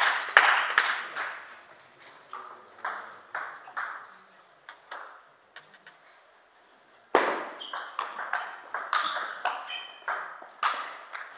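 Celluloid-style table tennis ball clicking on the table and off the bats: a few scattered bounces at first, then a quick run of hits in a rally from about seven seconds in.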